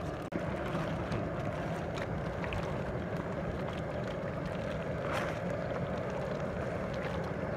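A long wooden spatula stirring thick ground masala paste through prawns in a large aluminium pot, with a few faint scrapes, over a steady low rushing noise.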